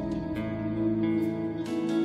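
Live worship band music: held keyboard chords with guitar strums.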